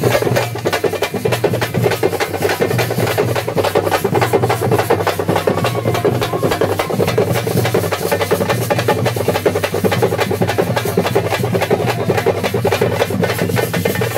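Fast, continuous drumming by a festival procession band, the beats coming several times a second without a break, over a steady low hum.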